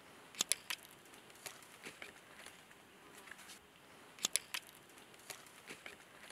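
Cut bamboo shoots knocking together as they are gathered up and swung onto a shoulder: two quick clusters of three sharp clacks, one just under a second in and one about four seconds in, with light rustling and ticking of dry bamboo leaf litter underfoot between them.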